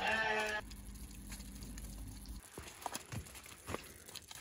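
A young calf's short bleating bawl at the very start, cut off within about half a second. Then a few soft, sharp steps squelching and clicking in wet mud as the cow and calf walk off.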